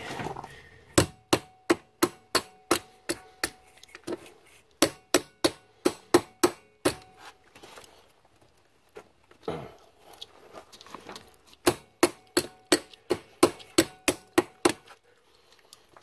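Three runs of light metallic taps, about three or four a second with a faint ring, from tapping a battery cable clamp down onto a lead terminal post to seat it.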